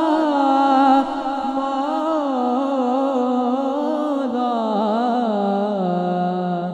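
A young male naat reciter singing long, drawn-out melismatic phrases into a microphone, his pitch bending and ornamented. He settles onto a held lower note near the end.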